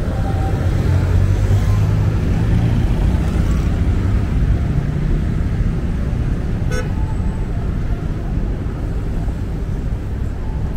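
Dense city road traffic: cars and motorcycles passing close by with a steady low engine and tyre rumble, loudest in the first few seconds. A brief vehicle horn beep sounds about seven seconds in.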